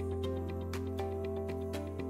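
Instrumental background music with a held bass note, steady pitched notes and a light, even beat.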